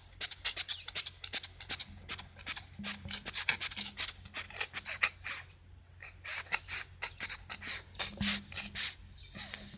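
A cat sneezing again and again in quick succession, a run of short hissing sneezes with a brief lull about six seconds in. The owner wonders whether the sneezing fit comes from hay fever.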